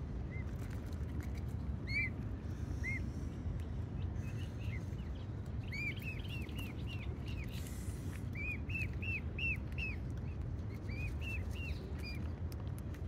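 Bird calls: short arched chirping notes, some single and some in quick runs of four or five, over a steady low rumble.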